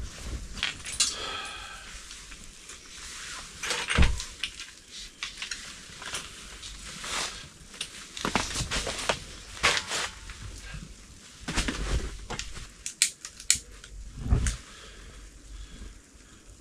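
Footsteps crunching in fresh snow, with irregular crackling clicks throughout and a couple of heavier thumps, about four seconds in and near the end.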